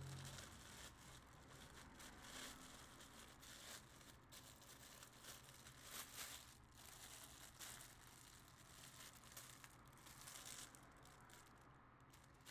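Faint crinkling and tearing of a plastic mailer bag being torn open, with the rustle of a plastic-wrapped shirt being pulled out, in irregular rustles.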